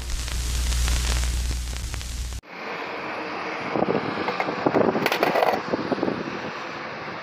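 Glitch-transition static: hissing noise over a low electric hum that cuts off abruptly after about two seconds. Then open-air background noise with scattered light clacks and scrapes as a skateboard is handled and flipped over on a hard court surface.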